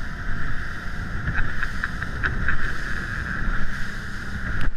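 Motorboat running fast over open water: wind buffeting the microphone, with the steady rush of water and spray along the hull, and a few light ticks in the first half.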